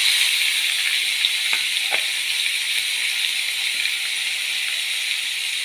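Crushed shallots and green chillies sizzling in hot tempering oil. The sizzle comes in suddenly as they hit the oil, then runs on as a steady hiss, with two faint ticks about one and a half and two seconds in.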